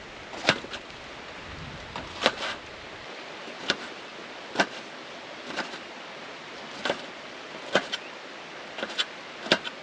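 Kitchen knife chopping a capsicum on a chopping board: sharp, irregular knocks, roughly one or two a second, over a steady background hiss.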